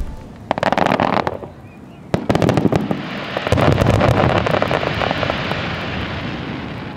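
Aerial firework shells bursting: a cluster of bangs about half a second in, a sharp bang near two seconds in, then a long dense crackling that slowly fades.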